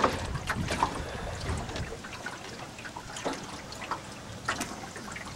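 Lake water lapping and trickling against the boat's hull, with small irregular splashes.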